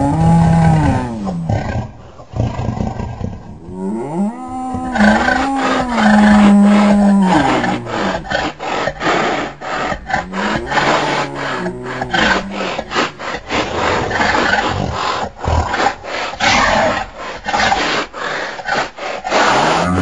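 Sound-designed creature roars layered from real animal calls such as bull, horse, moose and cow. Long bellowing calls rise and fall in pitch, the loudest a few seconds in. From about eight seconds on comes a rapid, rasping, rattling growl, with another bellow starting at the very end.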